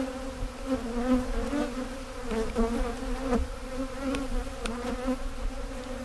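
Many honeybees from a defensive hive buzzing around the beekeeper, a steady hum with individual bees' pitch wavering up and down as they fly close by.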